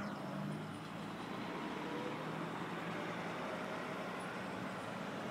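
Steady engine drone with a faint low hum under an even hiss.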